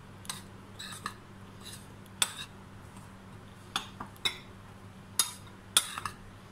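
Metal spoon stirring flour in a glass mixing bowl, clinking and scraping against the glass at irregular intervals.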